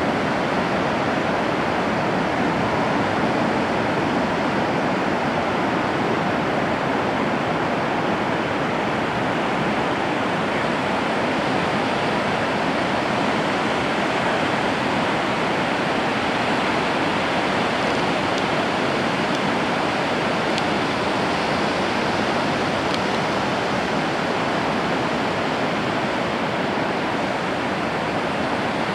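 Ocean surf breaking on a beach: a steady, unbroken roar of waves.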